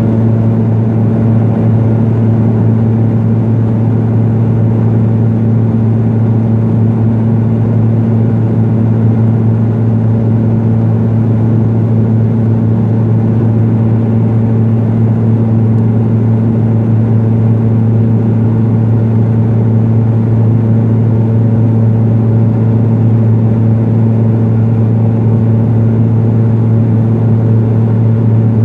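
The steady drone of a Pilatus PC-12's single Pratt & Whitney PT6A turboprop engine and propeller, heard from inside the cabin in flight. It is a loud, even low hum with a fixed deep tone that neither rises nor falls.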